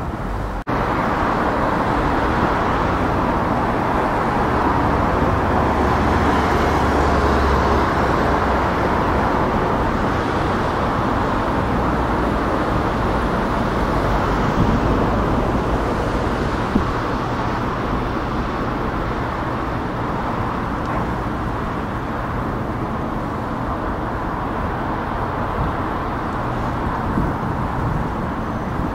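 Steady city road traffic noise: a continuous rumble and hiss of cars passing, with a deeper engine rumble swelling for a few seconds.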